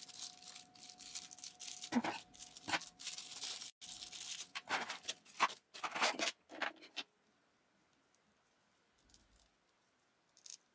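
Clear plastic blister tray of a Nendoroid figure package being handled: crinkling rustles and light clicks of the plastic, which stop about seven seconds in.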